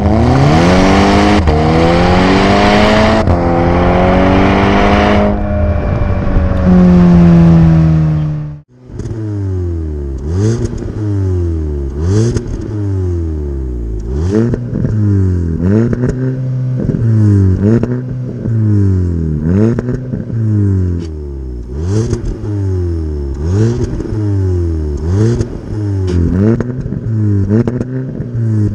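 Volkswagen Golf 6R's turbocharged 2.0-litre four-cylinder through a valved sport exhaust, accelerating hard with the engine note climbing and dropping at two quick upshifts. It then cuts out sharply, and the engine is free-revved at a standstill in short blips, one about every second, rising and falling each time.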